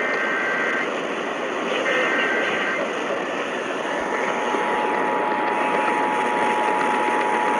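Emergency Alert System header: two short bursts of screechy two-tone digital data, then, about four seconds in, the steady two-tone EAS attention signal starts, all over a layer of radio static.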